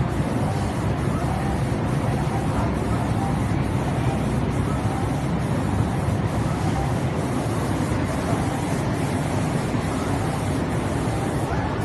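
Steady, even noise of an automatic 5-axis CNC spray painting machine and its spray booth running while it paints a wooden door.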